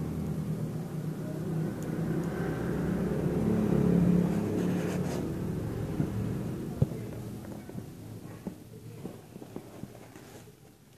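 A motor vehicle engine running, swelling to its loudest about four seconds in and then fading away, followed by a few light clicks and taps.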